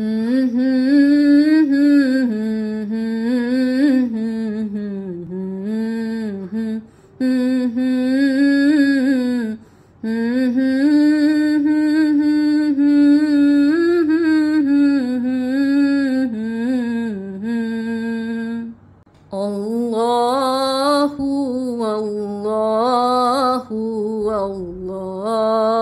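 A single voice singing an Arabic nasheed: long, wavering, ornamented notes with no clear words, broken by short pauses about 7, 10 and 19 seconds in.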